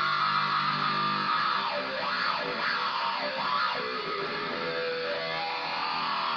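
Squier Stagemaster electric guitar playing with no other instrument: a held chord, then notes sliding up and down in pitch through the middle, settling onto held notes near the end.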